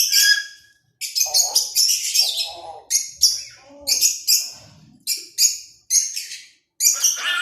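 Pet parrot calling in a quick series of short, harsh, high-pitched chirps and squawks, about two a second with brief gaps, some with lower voice-like sounds mixed in.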